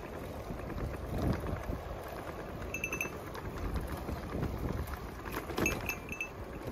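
Wind buffeting the microphone over the rolling noise of a bicycle ride on a paved path, with short high pips in quick runs of three or four, once about three seconds in and again near the end.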